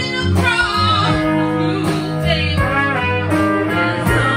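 Live band music: a woman singing lead over electric guitar, acoustic guitar and drums.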